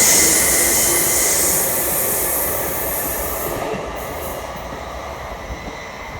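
A train running on the rails, its wheel and running noise fading steadily, with a faint steady squeal. The hiss dies away about three and a half seconds in.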